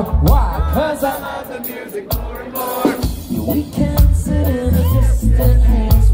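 Live reggae band playing, with sung vocals over bass, drums and guitar; the bass and kick drum drop back briefly about a second in and return about three seconds in.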